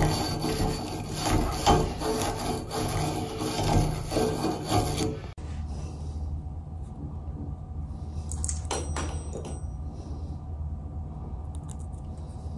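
A small tube brush scrubbing out the inside of an old Delta shower valve body, a rough rasping scrub for about five seconds that cuts off suddenly. After that, a low steady hum with a few light clicks.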